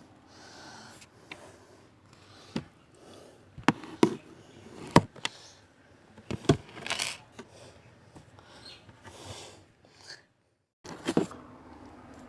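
Household objects being handled and set down: an irregular series of sharp knocks and clicks with short scraping and rubbing noises, the loudest knocks in the middle. Near the end the sound drops out completely for about half a second, a glitch in the recording.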